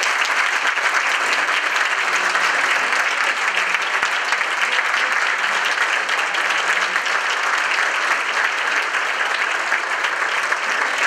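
Audience applauding steadily, a standing ovation from a roomful of people clapping.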